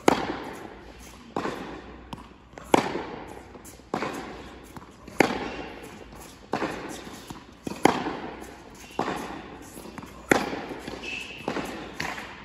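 Tennis rally: a tennis ball struck by racket strings and bouncing on the court, a sharp pop about every second and a quarter, each echoing in an indoor tennis hall.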